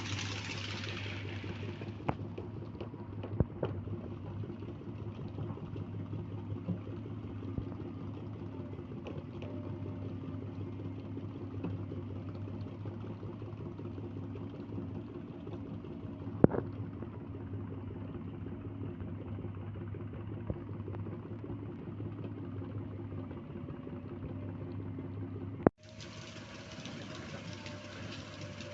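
Sany excavator's diesel engine running steadily, with a few sharp knocks over the hum. Near the end the sound drops out for an instant and then carries on.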